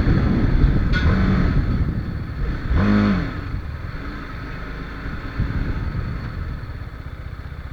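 On-board riding sound of a TVS Apache RR 310's 312 cc single-cylinder engine with wind rush, loud at first and easing off gradually as the bike slows. A short pitched sound is heard about three seconds in.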